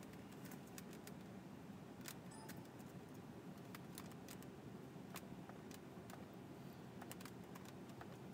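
Faint, irregular clicks of a computer keyboard and mouse as text is typed and edited, over a steady low background hum.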